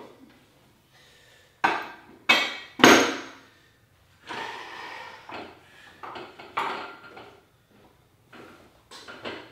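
Weight bench being moved across the floor: three sharp knocks about two seconds in, then scraping and rattling on and off.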